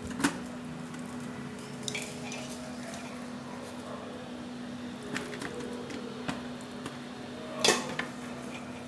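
A big spoon scooping mango pickle out of a steel pot and tipping it into a plastic jar: scattered clinks and knocks of the spoon against the pot, about five, the loudest near the end, with soft wet squelches of the pickle. A steady low hum runs underneath.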